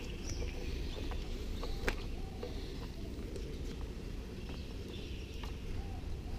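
Outdoor ambience with birds chirping a few times over a steady low background rumble, and a few faint clicks.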